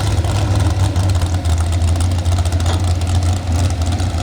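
Pulling truck's engine running at a steady low idle, a constant deep hum with no revving.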